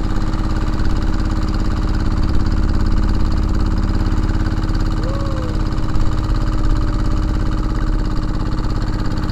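Fishing boat's engine running steadily, driving the outrigger boat through choppy water.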